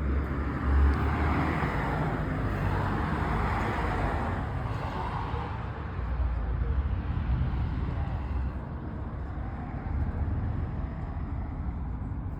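Steady low rumble with a constant wash of road-type noise, like a vehicle on the move.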